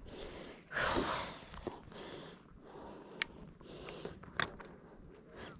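Shoes stepping and scuffing on sandstone while picking a way down, with a few sharp clicks and a short breath or sniff about a second in.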